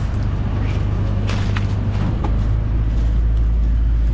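New Holland CX5090 combine harvester running as it sets off to thresh corn: a steady low engine hum with a few short knocks in the middle, the hum deepening a little about two seconds in.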